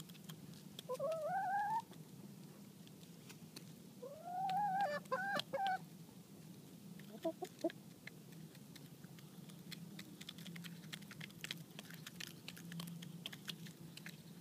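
Hens pecking cracked corn off a concrete slab, their beaks tapping in quick clicks. One rising call about a second in, a longer drawn-out call with a few calls on top of it around the middle, and a couple of short clucks after it.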